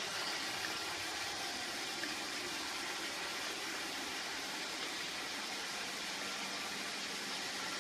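Roomba robot vacuum running, a steady even whirring hiss.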